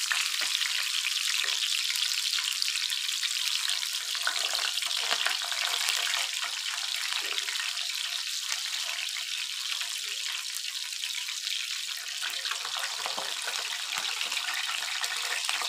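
Masala-coated fish pieces sizzling steadily as they shallow-fry in hot ghee on a flat iron tawa, with occasional light clinks as a fork and tongs turn them.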